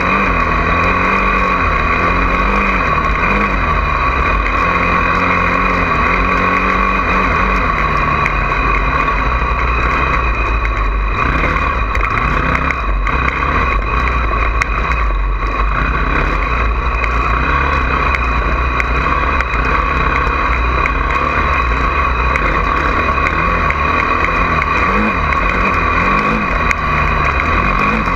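Honda CRF450R dirt bike's single-cylinder four-stroke engine running under riding. Its pitch rises and falls with the throttle in the first several seconds and again near the end, and is steadier in between.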